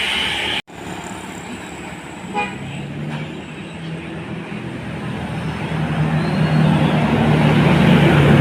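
After an abrupt cut, a short horn toot about two seconds in, then a bus's engine running and growing steadily louder as it approaches.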